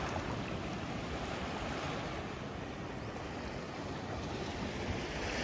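Sea waves washing onto a sandy beach: a steady hiss of surf that swells slightly near the end.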